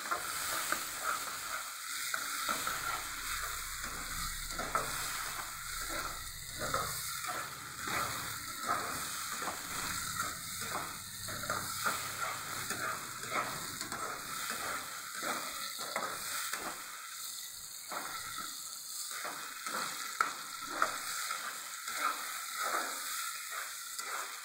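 Tomato, garlic and green-chilli paste sizzling in mustard oil in a nonstick kadai, with a spatula scraping through it in repeated quick strokes. The paste is being fried down for a masala base.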